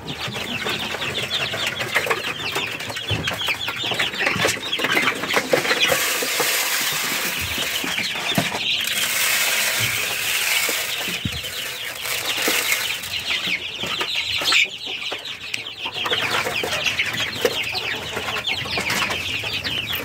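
A crowd of young chicks and ducklings peeping constantly, many short high chirps overlapping, with some rustling among them around a third of the way in.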